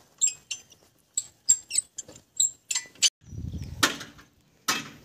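Quick light metal clinks and taps, some briefly ringing, of work on the bolts of a tractor's steel rear wheel rim. After about three seconds a low rumble sets in, with two short bursts of rushing noise near the end.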